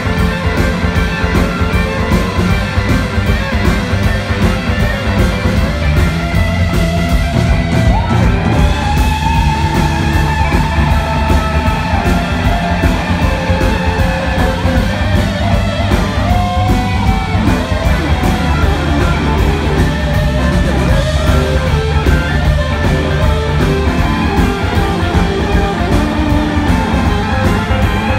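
Live rock band playing loudly with no singing: electric guitars play lead lines with long held and bent notes over drums and bass guitar.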